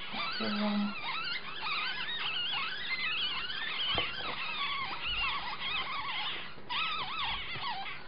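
Several nine-day-old ferret kits squeaking and crying over one another, a constant chatter of short rising-and-falling high squeaks. A single knock about four seconds in.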